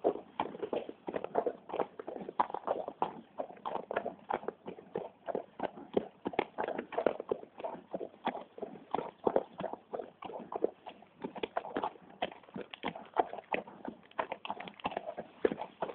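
Hoofbeats of a horse being ridden on a gravel track: an uneven, continuous run of clip-clopping hoof strikes, several a second.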